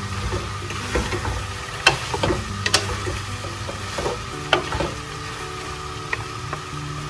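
Julienned bamboo shoot and vegetables sizzling in a hot pot while being tossed with two wooden spatulas: a steady sizzle and scraping, broken by several sharp knocks of wood against the pot at irregular moments.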